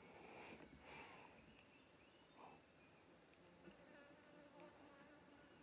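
Faint, steady, high-pitched insect drone.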